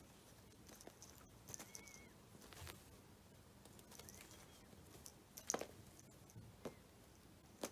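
Quiet play noises of a cat batting a dangling fabric toy on a woven rug: faint scattered taps and rustles, with a sharper click about five and a half seconds in. A few faint short high chirps come through as well.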